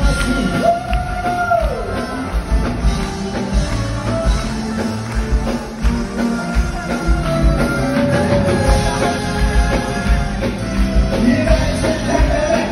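Live band playing amplified rock-style music with singing, heard from the audience in a large concert hall; a steady kick-drum beat runs under held sung notes.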